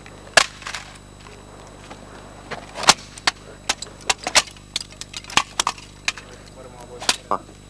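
A Nikko plastic toy radio-controlled car being smashed on asphalt: a run of sharp, irregular cracks and clatters, about a dozen, as it is struck and breaks apart.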